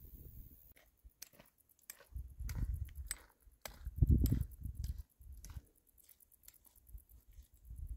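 Footsteps crunching and squelching on a wet mountain trail, with irregular clicks and rustling. Two louder low rumbles on the microphone, about two and four seconds in.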